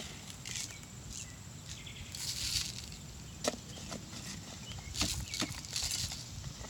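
Birdseed poured from a cup into a bird feeder: two short spells of hissing, rattling seed, about two seconds in and again about five seconds in, with a few light clicks of the cup against the feeder.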